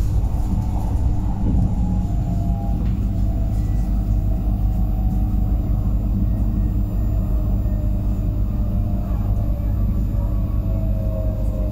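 Pesa Elf electric multiple unit running: a steady, loud low rumble with a faint whine that slowly falls in pitch.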